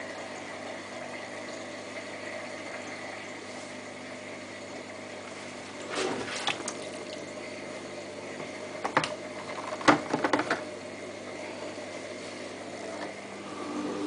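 Samsung WF8804RPA front-loading washing machine running with water in its drum, a steady hum with watery sounds, waterlocked so the water is not draining. A few sharp knocks about six seconds in and a louder cluster about nine to ten seconds in.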